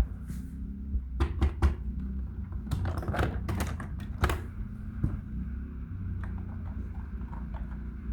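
Plastic toy vehicles being handled: a run of light clicks and knocks, thickest in the middle, over a steady low hum.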